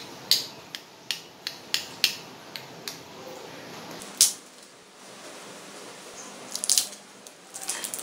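Crisp deep-fried wonton wrappers crackling and snapping as they are broken apart by hand: a quick run of sharp crunches in the first three seconds, one loud snap about four seconds in, and bunches of crackles near the end. The crunch is the sign of how crispy the wontons are fried.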